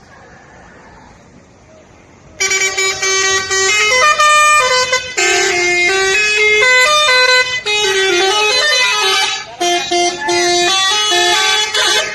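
Telolet bus horn, a set of multi-tone musical horns, playing a loud tune of stepping notes. It starts about two seconds in and breaks off briefly a couple of times.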